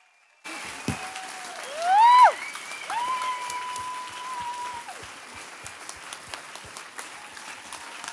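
Audience applause and cheering that break out suddenly about half a second in after near silence. A loud rising whoop comes around two seconds in, followed by a long, high, held cry from the crowd.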